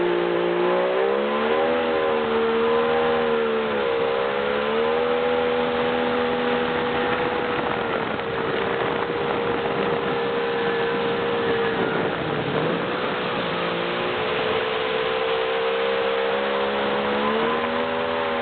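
Motorboat engine running steadily under load while towing a kneeboarder, its pitch wavering with the throttle: a short dip about four seconds in and a deeper dip and recovery about twelve seconds in. The rush of the wake and wind on the microphone runs beneath it.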